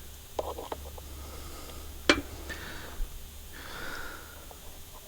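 Handling noises from brushcutter parts being fitted: a few light clicks, then one sharp click about two seconds in, with a breath or sniff near the end.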